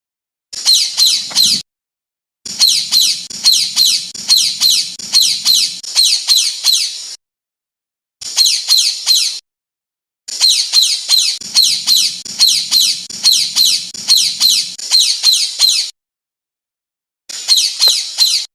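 Songbird masteran recording: bursts of rapid, repeated high chirping notes, each sliding downward, about two or three a second. The phrases last from about one to five seconds and are separated by dead silence.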